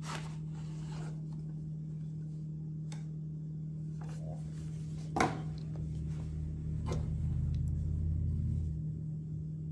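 Light handling sounds as a sunglasses case is slid out of its cardboard sleeve box and turned in the hands: a few soft clicks and knocks, the sharpest about five seconds in, with a low rumble of handling after it. A steady low hum runs underneath.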